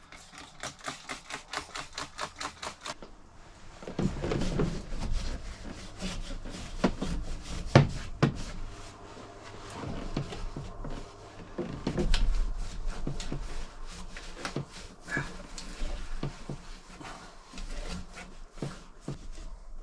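Scrubbing soot off the interior panels of a truck cab: quick back-and-forth strokes, about six a second, for the first three seconds, then slower, uneven rubbing with scattered knocks, including a sharp knock about eight seconds in.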